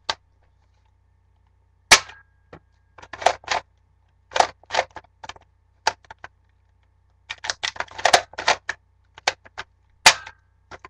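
Toy foam-dart blaster (Mega Dart 6, a Buzz Bee Tek 6 knock-off) being cycled and fired again and again: clusters of sharp plastic clacks and snaps every second or two. With its air restrictors (dart posts) removed, it barely launches the darts.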